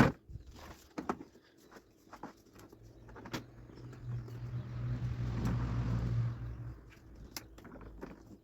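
Plastic parts of a wet-dry vacuum cleaner being handled and fitted together: scattered clicks and knocks, with a low hum and hiss that swells for a few seconds in the middle and fades out.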